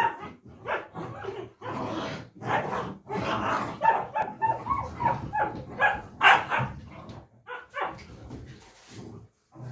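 Komondor puppies playing together, giving a steady stream of short barks and yips, with a quick run of high yips about four seconds in.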